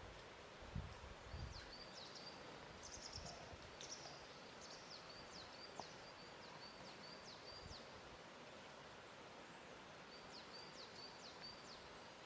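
Faint lake-shore ambience: a soft steady background hiss with small birds chirping, in quick high repeated notes and down-slurred calls. A few soft low thumps come in the first second and a half.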